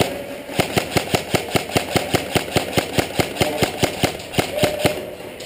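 Airsoft gun firing a long rapid string of shots, about six a second, as suppressing fire; the firing stops about five seconds in.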